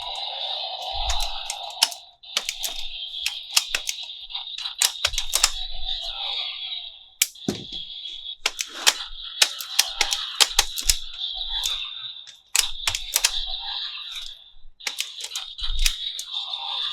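Hard plastic toy parts and packaging being handled: many sharp, irregular clicks and rattles come in quick clusters, with short pauses between them.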